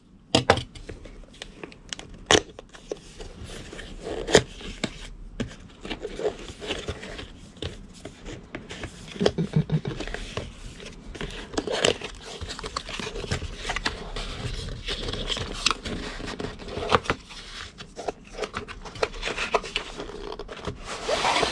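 A cardboard retail box being cut open and unpacked by hand: the seal is sliced with a box cutter, then the flaps and paper packaging are pulled, rustled and torn. Irregular crinkling and scraping with many sharp clicks and taps scattered throughout.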